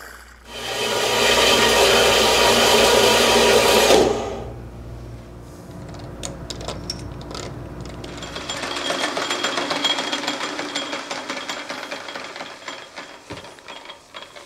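Metal lathe running, with a fast irregular clatter from its noisy headstock gears. A louder, hissy machine noise fills the first few seconds and then drops away.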